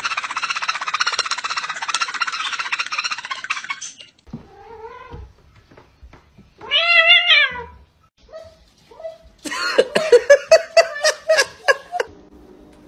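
A parrot's harsh, rapid squawking for the first few seconds, then a cat's meows, the loudest a long rising-and-falling meow about seven seconds in. Near the end comes a fast run of short yelps from a dog.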